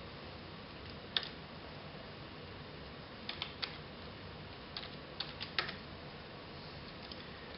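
Computer keyboard keystrokes: a handful of separate clicks spread over several seconds as a root password is typed at a Linux login prompt, with a slightly louder keypress a little past the middle, the Enter that logs in.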